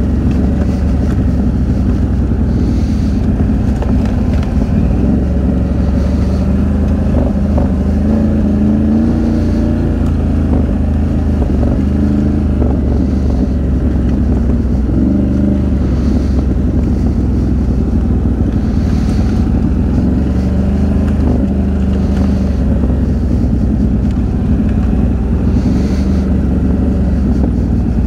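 Can-Am Outlander XMR 1000's V-twin engine running steadily while the ATV is ridden, its note rising and falling a little with the throttle.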